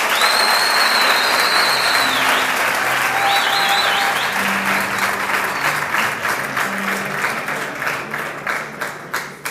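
Audience applauding, with a long high whistle about half a second in and a few shorter wavering whistles a few seconds later; the clapping thins out toward the end.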